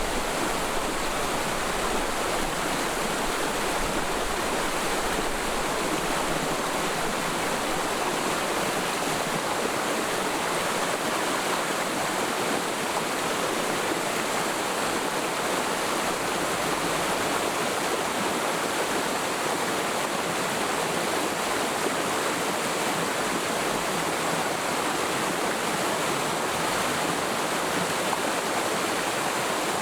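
Mountain stream flowing over rocks in a forest valley: a steady, even rush of running water.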